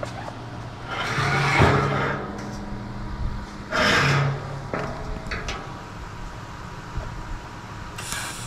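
TIG welding arc on a stainless steel barrel, struck in two short bursts of about a second and half a second as the seams are tacked: a hissing buzz that starts and stops with each tack.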